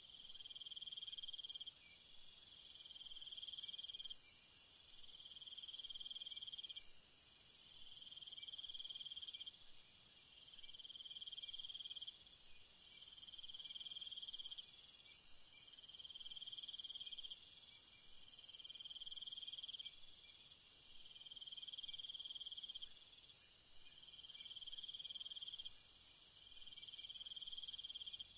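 Night chorus of crickets and other insects: a continuous high-pitched trilling, with a lower trill that repeats about every two and a half seconds.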